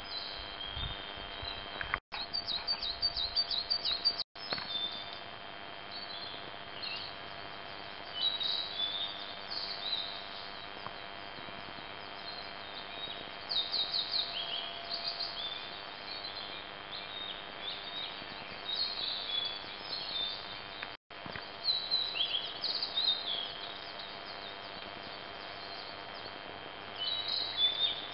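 Small birds singing and chirping on and off, short high calls and quick trilled runs, over a steady background hiss. The sound cuts out briefly three times.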